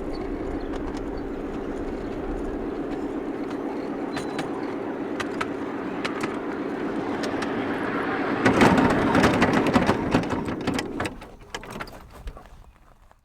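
Miniature railway locomotive's motor running steadily, growing louder with a rush of clicks and rattles about two-thirds of the way in, then fading away near the end.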